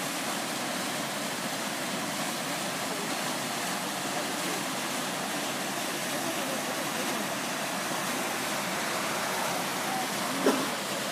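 Steady rush of a stream cascading down a rocky gorge. A short sharp sound comes near the end.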